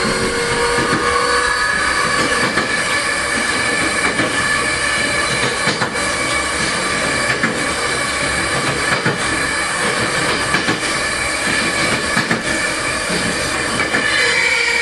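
Tokyo Metro Series 05 electric train running: steady rolling noise with several high steady whining tones and a sharp click about every second and a half. Near the end the tones begin to shift in pitch.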